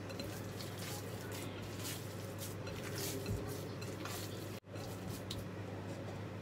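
Hands kneading and squishing a raw ground beef and pork mixture in a glass bowl, soft wet handling sounds that thin out after about four and a half seconds. A steady low hum runs underneath.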